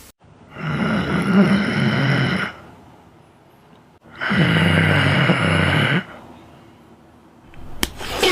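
A person snoring loudly: two long rasping snores, each about two seconds, with a quiet breath between them.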